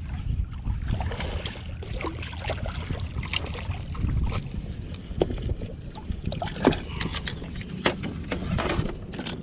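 Splashing and irregular knocks in shallow river water, over a steady wind rumble on the microphone.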